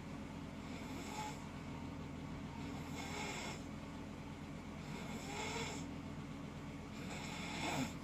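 Snoring: four snoring breaths, one about every two seconds, over a steady low hum.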